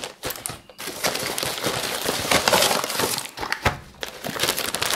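Plastic mailer wrap and cardboard packaging crinkling and rustling as items are pulled out by hand, with a few sharp knocks among the crackles.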